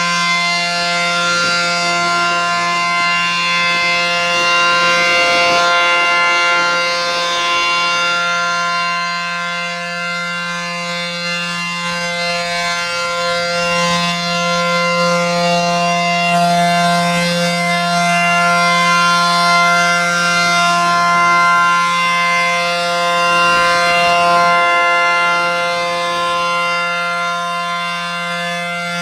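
ACA P-10 outdoor warning siren sounding a steady alert tone, its pitch holding level while the sound slowly swells and fades.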